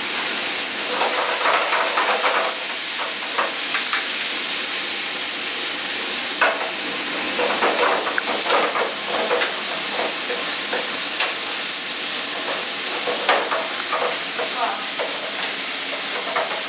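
Chicken pieces, dried chili peppers and peppercorns sizzling steadily in hot oil in a frying pan, while a wooden spatula scrapes and turns them in a stir-fry, with irregular scraping knocks throughout.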